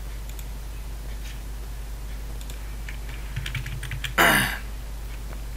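Computer keyboard and mouse clicks: light scattered keystrokes, with a quick run of them a little past three seconds in. Just after four seconds comes a brief, louder vocal noise from the person at the computer. A steady low electrical hum runs underneath.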